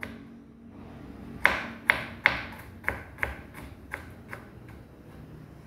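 A run of light, sharp taps or clicks, about two or three a second, starting about a second and a half in.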